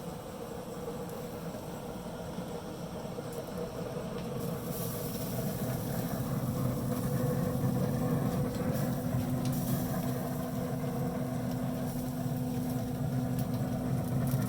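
A steady mechanical hum, like a motor or engine running, with a low drone that grows a little louder about five seconds in.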